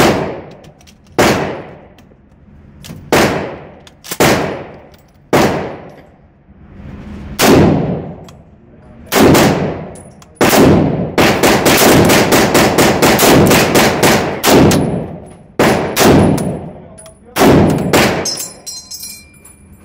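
M1 Garand rifle in .30-06 firing shot after shot in an indoor range, each crack echoing off the booth walls, mostly about one to two seconds apart, with a fast run of shots in the middle. Near the end comes a high metallic ping, the empty en-bloc clip ejecting after the last round.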